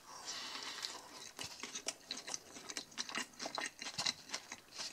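A person quietly chewing a mouthful of cheeseburger close to the microphone: a run of soft, irregular clicks and smacks.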